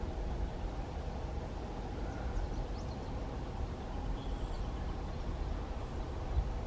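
Distant Wheeling & Lake Erie freight train rolling past, a steady low rumble of the passing cars, with a few faint bird chirps over it.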